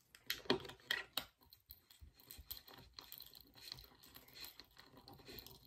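Small fingerboard parts handled at close range while a truck is being fitted to the deck. It starts with a quick cluster of sharp clicks and knocks, then continues as lighter tapping and scratching.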